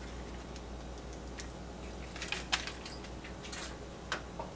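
A few light, irregular clicks and taps of a metal spoon against a wooden cup as a drink is stirred and the spoon is lifted out, the sharpest about halfway through.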